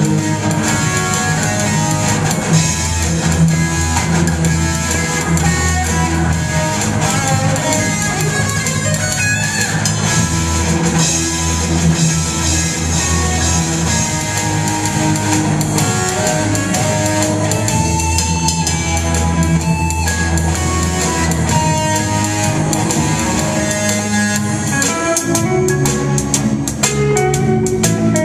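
A live rock band, electric guitars over a drum kit, playing a song continuously.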